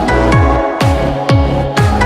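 Electronic dance music with a steady four-on-the-floor beat: a deep kick drum about twice a second, sharp hits between the kicks, and held synth chords above.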